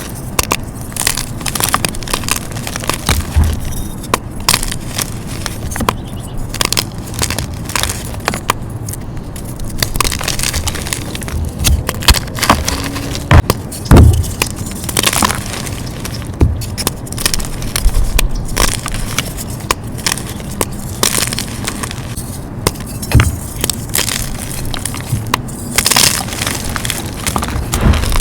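Dyed gym chalk blocks being crushed and crumbled, with a dense run of crisp crunches and irregular sharp cracks as the blocks break apart.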